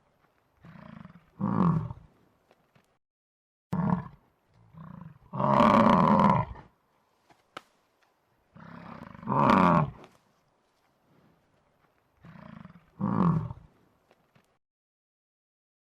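Big cat roaring in a series of four calls, each a softer lead-in followed by a louder call that falls in pitch, with quiet gaps between. The longest and loudest roar comes about halfway through.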